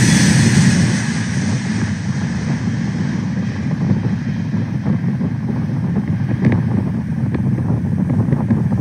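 Airbus A380 jet engines at climb power as the airliner departs: a steady low rumble with crackling, mixed with wind noise on the microphone. The higher hiss drops away about a second in.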